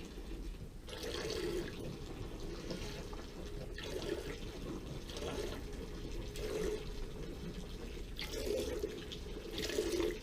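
A calf urinating: a stream of liquid splashing, swelling louder every second or two.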